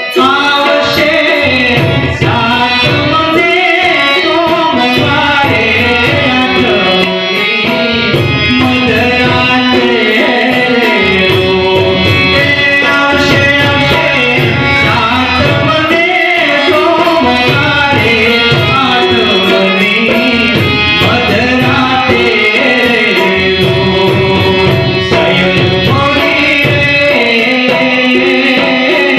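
Gujarati folk song (lokgit): a man singing with harmonium and tabla accompaniment, the tabla keeping a steady rhythm.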